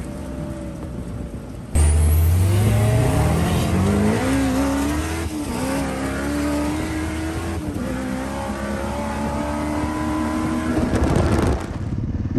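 High-horsepower sand car engine accelerating hard, heard from inside the car. After a quieter first couple of seconds the engine suddenly gets loud and its pitch climbs, dropping back twice as it shifts before climbing again. It cuts off near the end.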